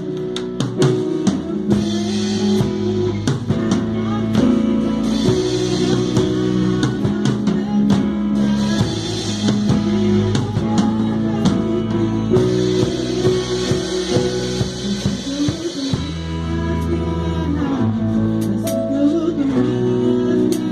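Live worship band rehearsing: drum kit with cymbal washes and steady drum hits under electric guitars, keyboard chords and bass, playing continuously.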